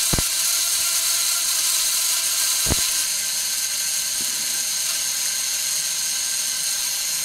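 Model A Ford ignition coil's vibrator points buzzing steadily as they make and break the primary, with the spark gap of a small Tesla coil crackling along. Two sharp clicks, one near the start and one about three seconds in.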